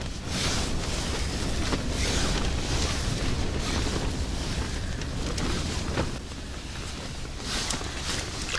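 Wind gusting and buffeting the microphone, a steady rushing with deep low rumble that swells and eases, with a few faint clicks.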